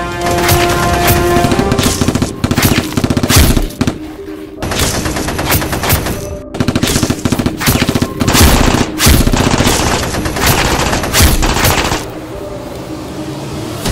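Volleys of rapid automatic gunfire sound effects, laid over the Nerf blaster action in place of the blasters' real sound, with background music underneath. The shots come in dense runs with short pauses between them, and give way to a quieter hiss near the end.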